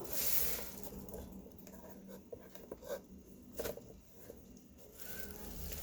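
Quiet handling noises from a coffee maker being moved about: a short scraping rustle at the start, then scattered light clicks and knocks.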